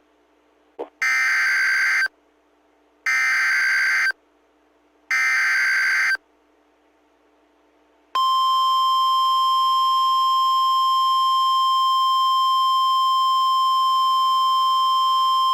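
NOAA Weather Radio Emergency Alert System signal: the SAME digital header sent as three short bursts of warbling data tones, about a second each and a second apart. About eight seconds in, the steady, single-pitched 1050 Hz warning alarm tone begins, which announces that a warning message is about to be broadcast.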